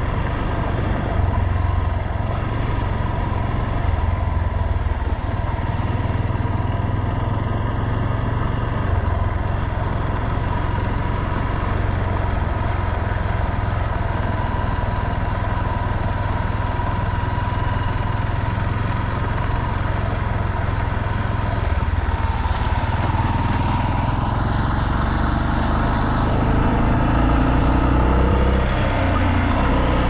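Yamaha Serow dual-sport motorcycle's single-cylinder four-stroke engine running steadily while the bike is ridden along, heard from on board with road noise. It gets a little louder near the end.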